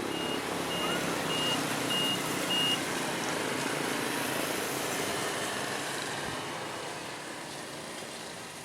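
Heavy road-paving machinery running with a steady rushing noise, while a reversing alarm beeps about twice a second for the first few seconds. The machine noise then slowly fades.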